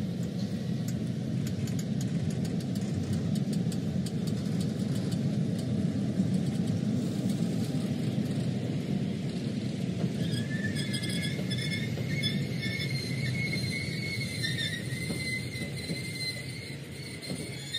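Long Wiebe track-construction train of yellow machine wagons rolling past, a steady rumble of wheels on rail. Rapid fine clicking fades out after about five seconds, and a high-pitched squeal joins in about ten seconds in.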